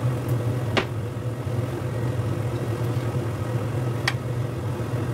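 Steady low mechanical hum in a kitchen during stovetop cooking, with two short sharp clicks, one about a second in and one near four seconds, the second as a spatula is brought to the pan.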